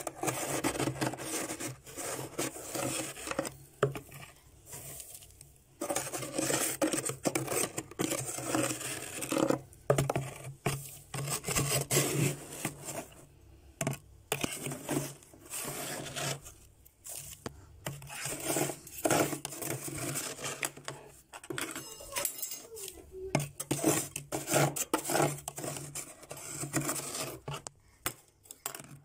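A spoon scraping and crunching through thick built-up frost in a freezer in irregular strokes, with loose frost being scooped into a bowl.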